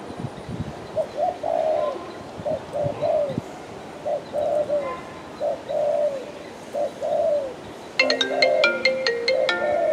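Spotted dove cooing: repeated short phrases of soft, falling notes. About two seconds before the end, plinking marimba-like music starts over the cooing.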